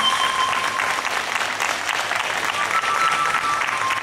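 Audience applauding, with a few held musical notes faintly underneath.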